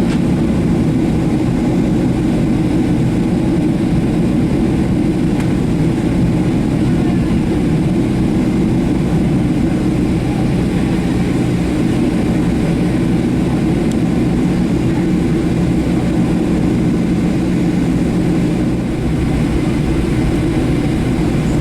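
Steady low rumble of a Boeing 737-700's CFM56 jet engines and airflow, heard from inside the passenger cabin.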